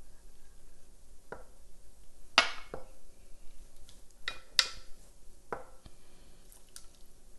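Wooden spoon stirring thick brownie batter in a ceramic mixing bowl, knocking and clinking against the bowl about half a dozen times; the loudest knocks come about two and a half and four and a half seconds in.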